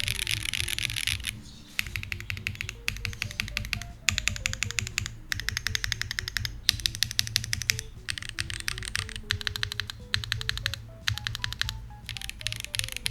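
Typing on a Monsgeek M1 V3 mechanical keyboard fitted with Akko x Monsgeek Green Fog heavy linear switches and double-shot PBT keycaps: fast runs of keystrokes in bursts, with short pauses between them. Background music with a stepping melody plays underneath.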